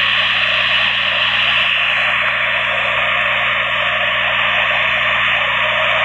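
Case backhoe loader's diesel engine running steadily and loudly.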